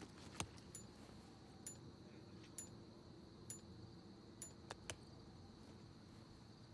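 Faint footsteps and clinks of carried gear, with a short high tick repeating about once a second.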